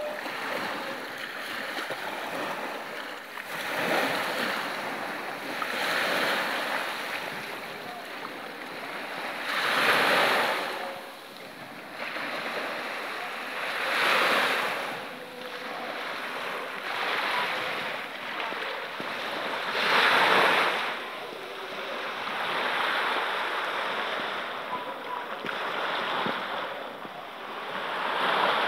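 Small sea waves breaking and washing up a sandy beach, each surge swelling louder every few seconds over a steady rush of water.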